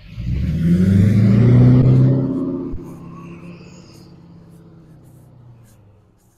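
A motor vehicle drives past close by with its engine accelerating. It is loud for the first two seconds or so, then fades away over the next few seconds.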